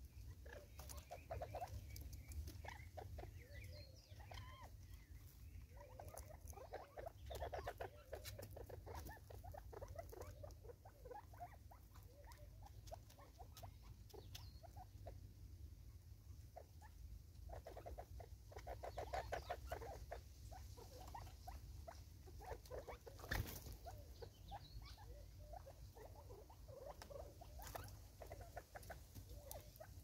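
Ground game birds (spurfowl and francolins) pecking seed out of a plastic bottle feeder: a light, irregular tapping patter. It comes with bouts of quick, rapid-fire clucking, strongest about a quarter of the way in and again around two-thirds through, and one sharper knock about three-quarters through.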